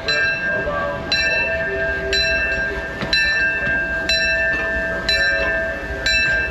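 Disneyland Railroad steam locomotive's bell ringing steadily, about one stroke a second, each stroke ringing on, over the low rumble of the train.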